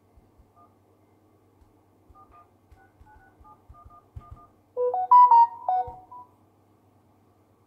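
Samsung Galaxy S10 Plus dial pad sounding a quick run of faint touch-tone (DTMF) key beeps with light finger taps as a phone number is keyed in. About five seconds in comes a louder short chime of a few stepped notes, the phone's notification sound.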